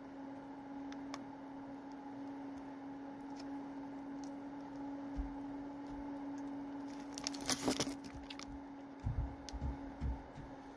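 A person chewing gummy candy with mouth closed, soft squishy clicks over a steady electrical hum, with a short burst of crackling about seven seconds in and a few low thuds near the end.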